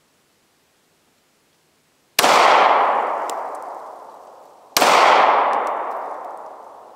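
Two shots from a 9mm Glock 43 pistol, the first about two seconds in and the second about two and a half seconds later, each a sharp crack trailing off in a long echo.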